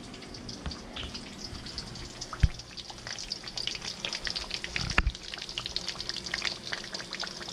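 Seasoned snapper sizzling and popping in a hot pan, the crackle growing busier after a few seconds. Two dull knocks, about two and a half and five seconds in.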